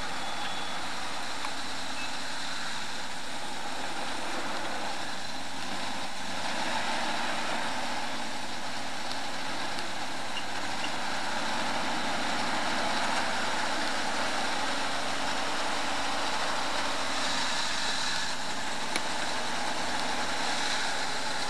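Four-wheel-drive vehicle's engine running steadily at low speed as it crawls over sandy off-road ground.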